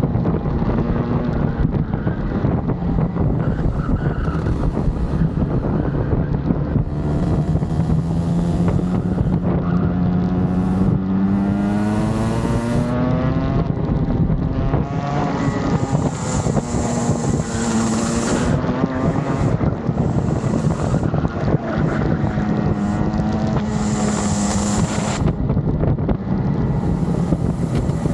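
Rotax kart engine running hard on track. Its pitch climbs steadily for several seconds, drops sharply about halfway through, then rises and falls again, with wind rushing over the microphone.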